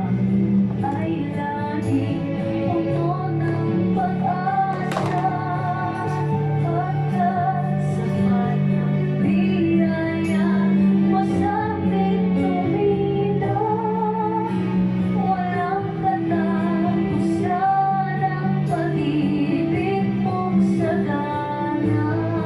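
Background music: a song with a female voice singing over a steady beat.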